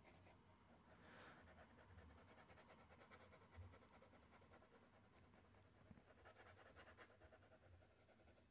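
Near silence: faint room tone with soft, quick scratchy ticks, slightly stronger about a second in and again around six to seven seconds.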